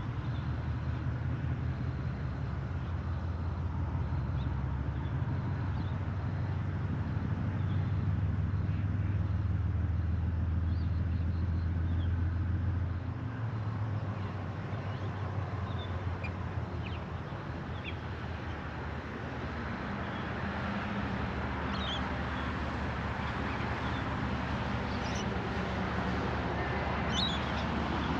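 Diesel freight locomotives running with a low, steady engine hum as the train crawls out of the yard; the hum eases about halfway through and a rushing noise builds toward the end. Birds chirp here and there.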